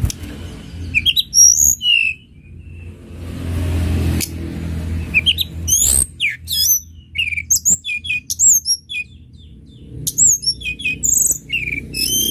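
Tledekan gunung songbird singing: a run of short, high, sharply sliding chirps and quick trills, pausing briefly about two-thirds of the way through before starting again, over a low background rumble.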